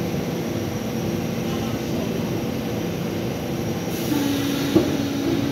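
NYC subway car humming steadily at close range. About four seconds in, a new steady tone and a hiss join the hum, and a single sharp click follows just after.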